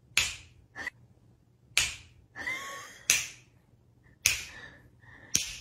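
A person snapping their fingers: five sharp snaps, a little over a second apart.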